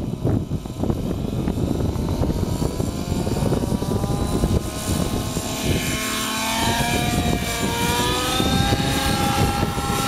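Thunder Tiger Raptor 90 G4 RC helicopter's nitro engine and rotor spooling up, the pitch rising over several seconds as it lifts off, then wavering up and down in flight. Wind noise on the microphone at the start.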